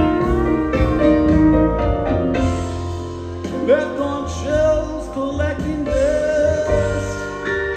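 Live band playing a slow instrumental passage: sustained lead notes, some sliding, over piano, guitar and bass, heard from the audience.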